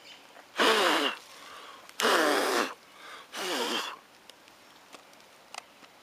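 Cordless drill boring into a wooden log in three short bursts, about half a second each, the motor's pitch sliding as it speeds up and slows.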